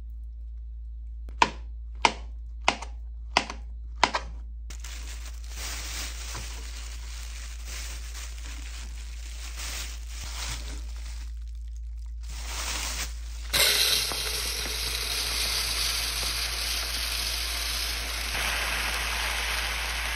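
Five sharp knife strokes onto a plastic cutting board, about two-thirds of a second apart, as a banana is cut into chunks, followed by the crinkling of a plastic bag as the pieces go in. About fourteen seconds in, a sudden, steady hiss of dry mixed grains and rice pouring from a bag into a plastic container.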